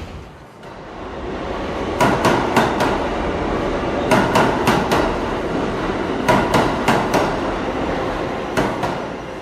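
Subway train wheels rolling along the track, clicking over rail joints in clusters of about four every two seconds, over a steady rolling rumble.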